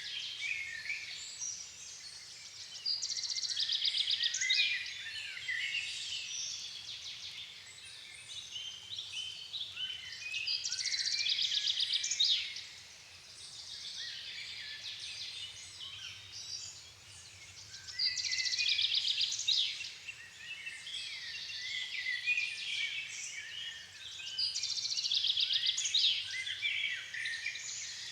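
Dusk chorus of several songbirds singing at once in a floodplain forest, the songs overlapping in many short, high phrases. One louder song phrase returns about every seven seconds.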